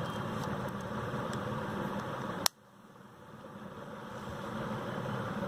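A single sharp click about two and a half seconds in as the battery compartment of an SJCAM SJ7 Star action camera is snapped shut with the battery back inside, over a steady background hum. Right after the click the hum drops out and slowly fades back.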